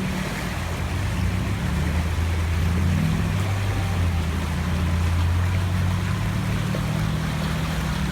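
Off-road 4x4's engine running through a creek crossing, a steady low drone with a brief rev about three seconds in, over the wash of moving water.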